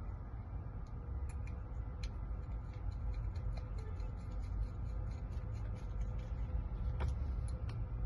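Light metallic clicking, a few small clicks a second, over a low rumble, as the parts of a freshly rekeyed lock are handled and fitted back together.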